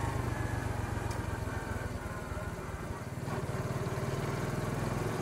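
Small four-speed motorcycle engine running steadily, its note dipping slightly a little past halfway and then picking up again.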